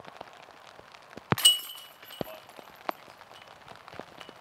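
A disc golf putt striking the chains of a metal basket: one sharp clash about a second in, then a metallic ringing that dies away over about a second. Rain patters with light ticks throughout.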